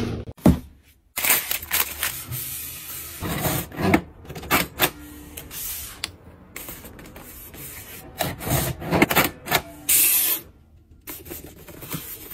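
Hands handling cardboard boxes and printed paper packing tape: uneven bursts of rustling, scraping and rubbing as the tape is pulled and pressed down onto the box.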